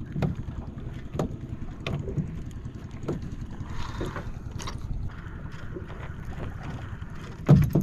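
Wind buffeting the microphone and water moving around a small open boat, with scattered light clicks and knocks and one heavier thump near the end.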